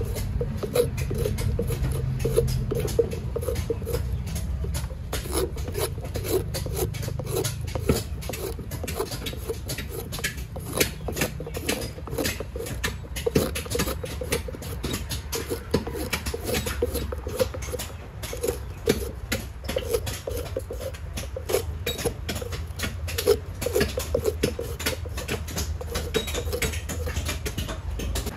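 Short knife blade paring the brown skin off a peeled coconut's white kernel, a quick, steady run of short scraping strokes several a second. A low steady hum runs underneath.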